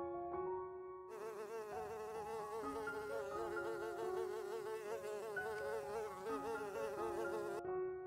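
Honeybees buzzing at a hive entrance: a wavering drone of many wings that starts about a second in and cuts off abruptly near the end. Soft held piano-like notes sound underneath.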